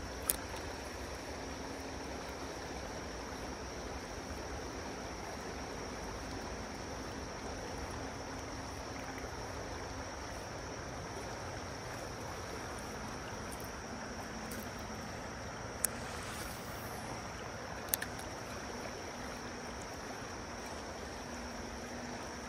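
Steady rush of river water, with a few isolated sharp clicks.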